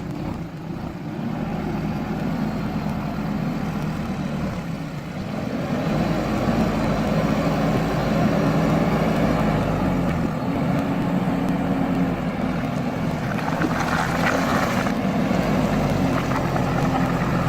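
JCB backhoe loader's diesel engine running steadily as the machine works, getting louder about six seconds in. A brief clattering stretch comes a little after halfway.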